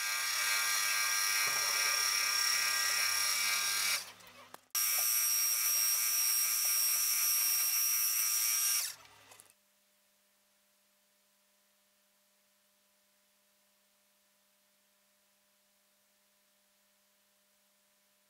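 Milling machine spindle running with a steady high-pitched whine while a drill works into an aluminium block. It stops briefly about four seconds in, starts again, then cuts off suddenly about halfway through, leaving near silence.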